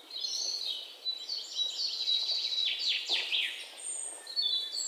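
Songbirds chirping and singing: a busy run of high chirps and several quick falling notes.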